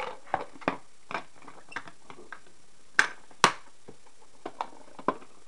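Scattered clicks and knocks of food containers and packages being handled and moved about, with two sharper knocks about three seconds in.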